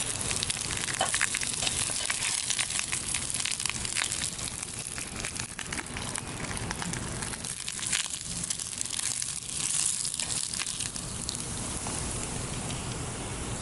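Bacon sizzling in a pan over a campfire, a steady frying hiss with many sharp crackles and pops.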